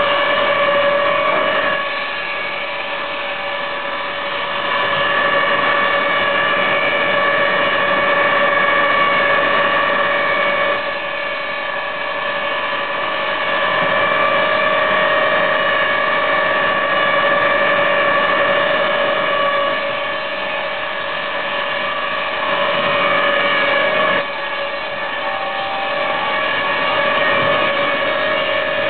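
An industrial wood planing machine running with a steady high whine of its spinning cutters and motor. It grows louder for several seconds at a time as boards are fed through, then falls back.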